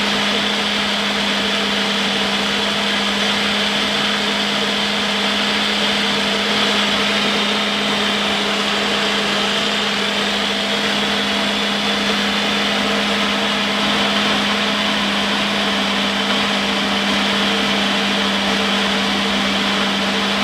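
Personal blender running steadily at one speed while blending a smoothie, a constant motor hum with a high whirring over it.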